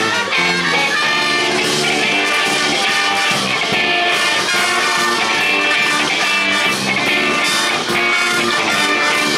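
School brass band with saxophones, trumpets, trombones, sousaphones and a drum kit playing an upbeat pop-rock tune live, loud and continuous.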